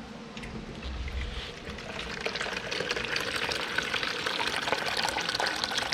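Water pouring and splashing as it drains out of the airplane hopper's fill pipe, getting steadily louder as the flow builds.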